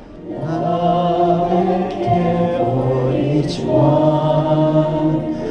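A group of voices singing a slow song together, with long held notes, fading in at the start.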